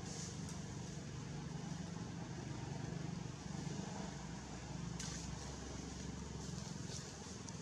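Steady low hum of a distant engine, with one sharp click about five seconds in.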